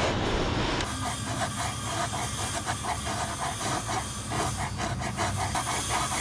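A hand chisel paring wood from a boat's cap rail in a quick run of short cuts, starting about a second in; more of the rail is being trimmed away so the bowsprit will pass.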